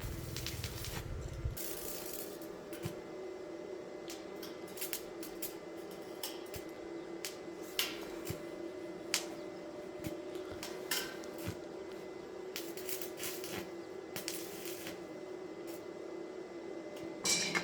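Scattered light metallic clinks and taps over a steady hum, as of metal pieces or tools being handled.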